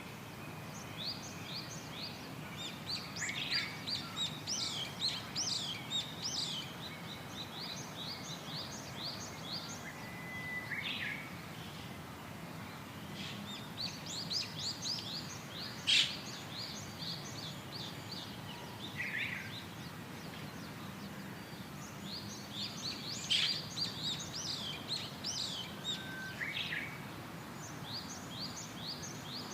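Small birds chirping in quick repeated series, in bouts of a few seconds each, over a steady faint hiss. A single sharp click about sixteen seconds in.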